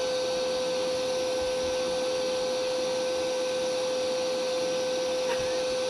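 Steady whirring of a small electric motor, with an even hum held at one constant pitch.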